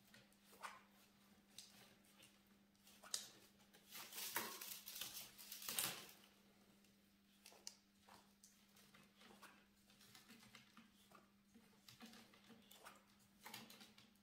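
Faint rustling and light clicks of binding cane being pulled tight and wrapped around a bundle of soaked willow base sticks, busiest about four to six seconds in. A steady low hum runs underneath.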